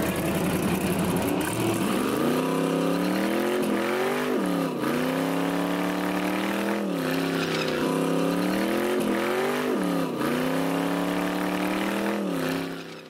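Car engine revving hard during a burnout, spinning the rear tyre into smoke. The revs climb and fall back sharply about six times.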